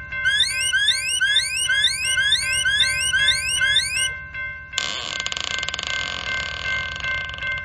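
Cartoon sound effects: an electronic whoop that rises in pitch, repeated about twice a second over steady held tones, like an alarm. Just under five seconds in it gives way to a sudden steady rushing hiss.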